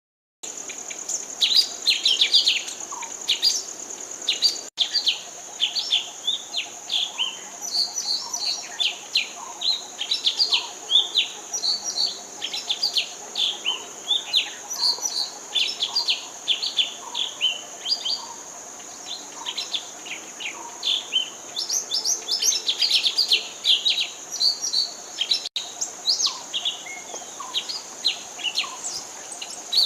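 Wild songbirds chirping, a dense run of quick, short high calls overlapping one another, over a continuous high-pitched steady buzz. The sound drops out for an instant twice.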